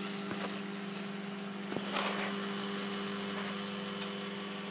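Microwave oven running with a steady hum, and a single click about two seconds in.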